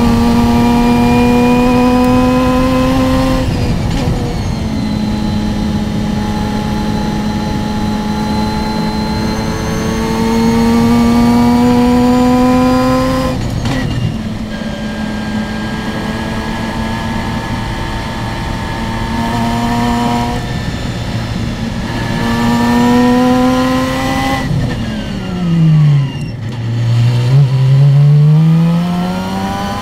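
Open-wheel single-seater race car's engine heard from the cockpit at high revs, its note climbing steadily as the car accelerates and breaking off at each lift and gear change. Near the end the pitch drops steeply as the car brakes and downshifts for a slow corner, then rises again as it accelerates out.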